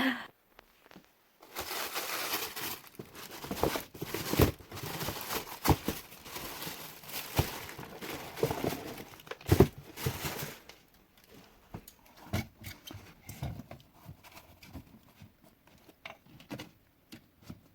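Rustling and crinkling handling noise with several sharp knocks as shoes are moved about and set on the rack. About ten seconds in it gives way to fainter scattered taps and clicks.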